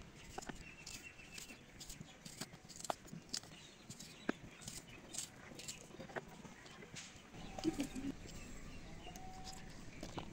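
A knife slicing through a raw red onion held in the hand: a string of short, crisp cuts at an uneven pace.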